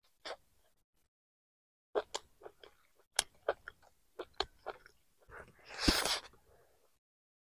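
A person chewing a mouthful of chicken curry and rice. Starting about two seconds in there is a run of sharp, wet mouth clicks and smacks, then a louder, short noisy burst near the end.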